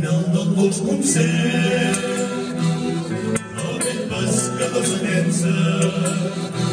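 A recorded havanera song: voices singing over instrumental accompaniment.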